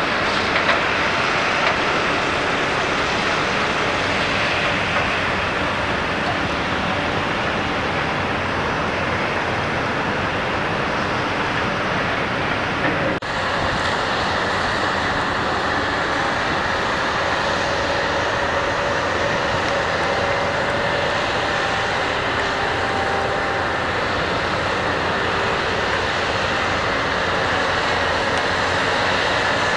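Steady, loud mechanical rumble and hiss with no pauses, the kind of noise heavy machinery or traffic makes across open water. Its tone changes abruptly about 13 seconds in, and faint steady hums run through the second half.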